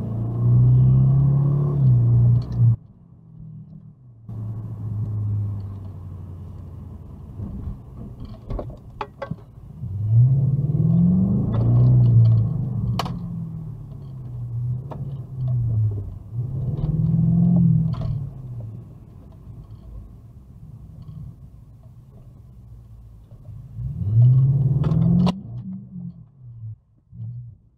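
Car engine heard from inside the cabin, speeding up and easing off several times, its pitch rising and falling in repeated swells. A few sharp clicks sound between the swells.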